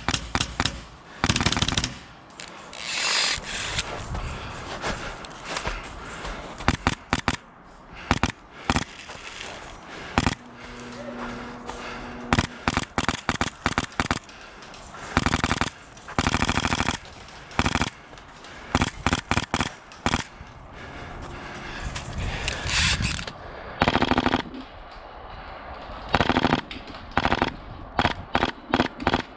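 Airsoft guns firing: strings of rapid shots and single shots, some in short bursts, repeating throughout.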